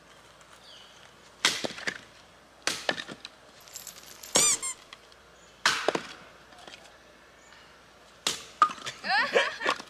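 A series of sharp knocks or cracks, five in all, one to two seconds apart, one of them with a short ringing squeal; near the end comes a quick run of squeaky, gliding sounds.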